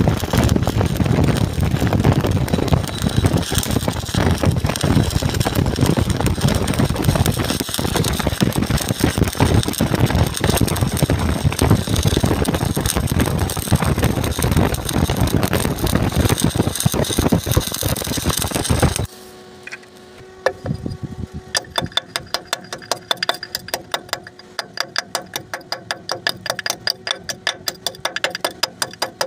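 Stick (shielded metal arc) welding with a 6013 electrode at about 130 amps: a loud, steady crackle and sizzle of the arc, which cuts off suddenly about two-thirds of the way through. After a short pause comes a run of sharp metal-on-metal taps, several a second, as a tool chips at the fresh weld.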